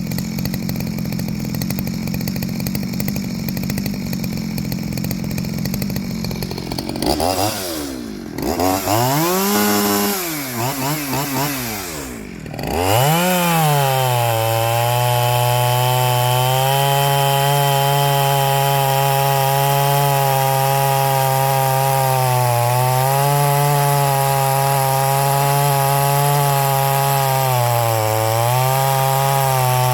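Stihl 023 C two-stroke chainsaw running steadily after a cold start, then revved up and down several times about seven to thirteen seconds in while it is being tuned. It then holds a steady high speed to the end, its pitch dipping slightly twice.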